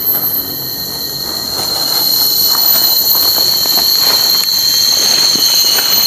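Steady, loud, high-pitched drone of cicadas, growing louder about two seconds in, with faint rustling of leaves and undergrowth.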